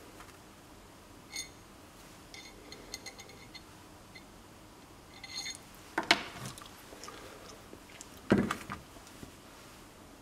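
Steel parts of a line boring bar being handled: light metallic clicks and clinks with a short ring, then two louder knocks about six and eight seconds in as steel meets the concrete floor.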